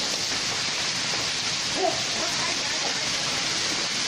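Heavy rain mixed with hail pouring down in a steady, even hiss.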